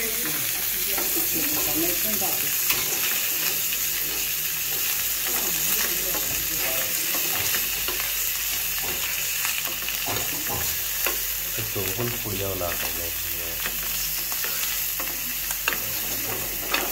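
Fish frying in oil with onion, garlic and green and dried chillies in a pan: a steady sizzle, with a spatula stirring and scraping in scattered clicks.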